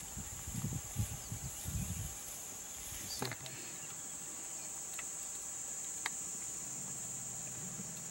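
Steady high-pitched insect chorus, with low rumbles in the first two seconds and a few faint clicks later on.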